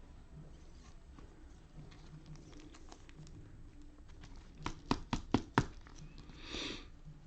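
Trading cards being handled at a table: light handling noise, then a quick run of about five sharp taps around five seconds in, and a short rustle about a second later.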